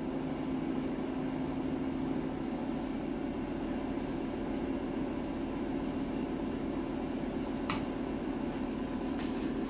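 Steady hum of a fan running in a small kitchen, with a faint scrape or two of a wooden spatula in a frying pan near the end.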